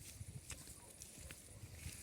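Faint outdoor background: a low uneven rumble, a thin steady high hiss, and two or three light clicks.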